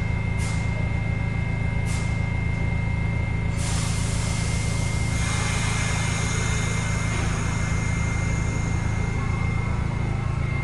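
R68 subway train standing at the platform with a steady low electrical hum and a thin high whine from its equipment, and a couple of clicks in the first two seconds. About three and a half seconds in, a loud hiss of air from the train's pneumatic system starts and carries on.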